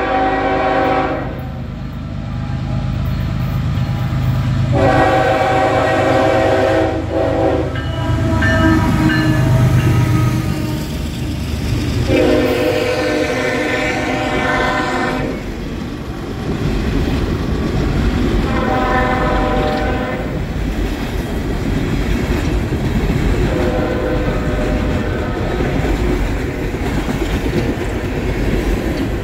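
Norfolk Southern freight train's chord horn blowing five times, long and short blasts of several tones together, as the diesel locomotives rumble past close by. After them, empty coal hoppers clatter steadily over the rails.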